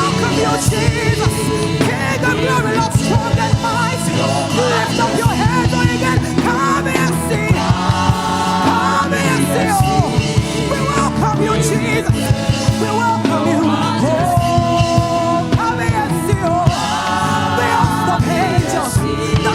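Live church praise band playing an upbeat song, drums keeping a fast beat, with voices singing over it.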